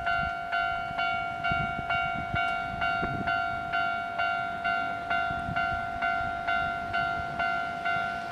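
Japanese railway level-crossing warning bell ringing at a steady pace of about two strikes a second, signalling that a train is approaching.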